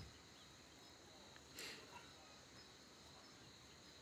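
Near silence, with the faint steady high chirring of crickets in the background and a brief faint rustle about a second and a half in.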